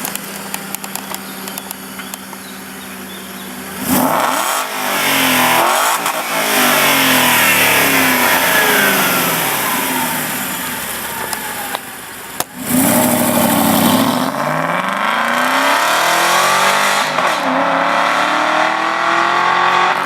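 Aston Martin V8 Vantage's V8 engine idling, then accelerating hard about four seconds in, its note sweeping up through the revs. It accelerates hard again after a short break, with the pitch dropping and climbing again near the end as it shifts up.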